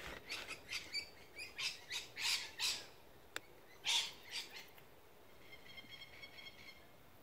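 Birds calling: a string of short, harsh chirps and squawks, then a quick run of repeated pitched notes near the end.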